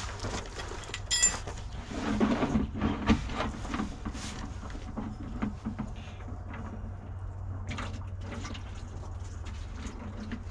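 Warm engine oil running out of the bus's sump drain into a container: a steady pouring splash, warm enough that it runs out like water. A few knocks and a metallic tick come in the first few seconds, over a steady low hum.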